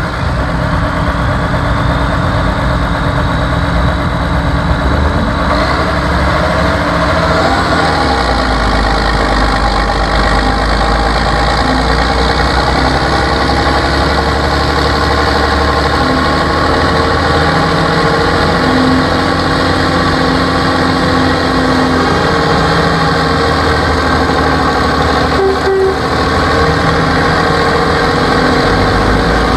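Belarus 1221 tractor's six-cylinder turbo diesel running hard under a pulling load in deep mud. The engine note climbs a few seconds in, then holds steady and loud.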